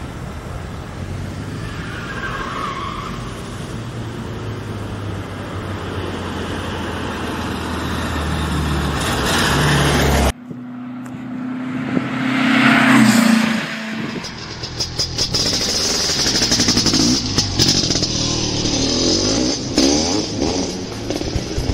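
Classic VW Beetle's air-cooled flat-four engine running as the car drives, growing steadily louder. After a sudden cut about ten seconds in, the car drives past close by, loudest a few seconds after the cut, and keeps running on.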